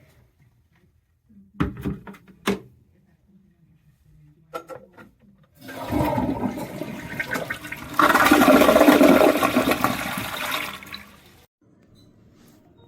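A toilet flushing: a rush of water that swells, then cuts off, preceded by a few sharp clunks.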